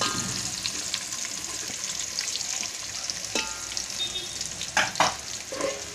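Sliced onions sizzling in hot oil in a metal cooking pot, a steady hiss, with a few sharp knocks and scrapes of the pot being stirred, the loudest a pair near the end.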